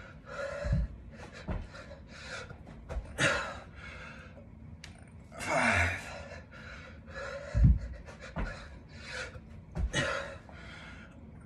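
A man breathing hard through a set of dumbbell burpees with curl and press, panting with forceful exhales about once a second. Several dull thumps on the floor come between the breaths, the loudest a little past the middle.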